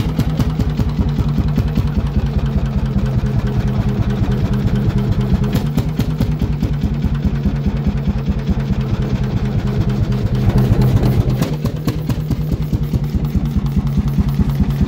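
Single-cylinder Målilla 35 hp hot bulb crude oil engine running with a quick, even beat. About two-thirds of the way through it briefly swells and then settles.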